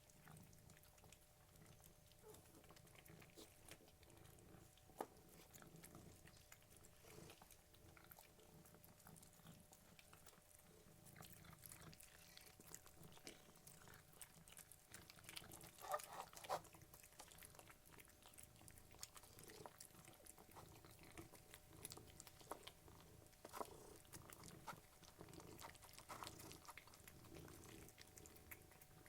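Cats eating, with faint crunching and chewing throughout and a louder run of crunches about halfway through, over soft, low cat purring.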